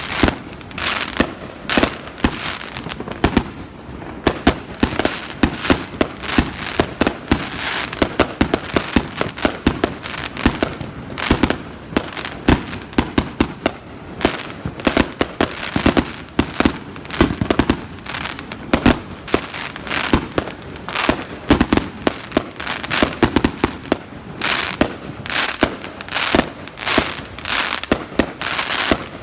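Fireworks going off in rapid succession: a continuous string of sharp bangs and crackles, many a second, with no let-up.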